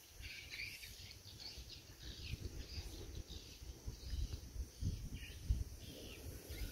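Small birds chirping in short, scattered calls, busiest in the first few seconds, over a low, uneven rumble.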